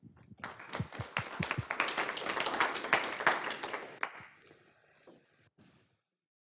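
Audience applauding: a few separate claps swell into full applause over the first two seconds, then die away from about four seconds in.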